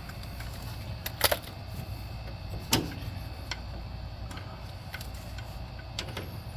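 Scattered sharp clicks and clinks of metal tools and parts being handled, the loudest a quick double click about a second in and a single one near three seconds, over a steady low hum.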